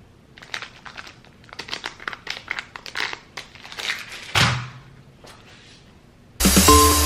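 Plastic grocery packaging crinkling in quick, irregular crackles as items are handled, with one louder crackle and a thump about four and a half seconds in. Electronic music starts suddenly near the end.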